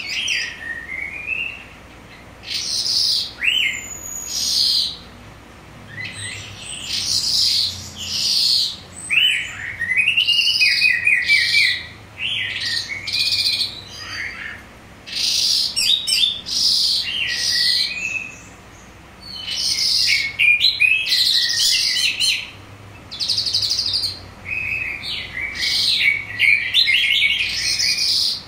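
Calandra lark singing: a long run of quick, varied song phrases of chirps, twitters and rattling trills, each lasting a second or two with short pauses between.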